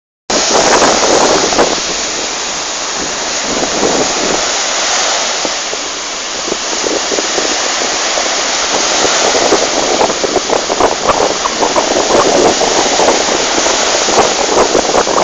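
Waves of Lake Tanganyika breaking and washing onto the shore: a steady rushing noise with a crackle of splashes that grows denser in the second half.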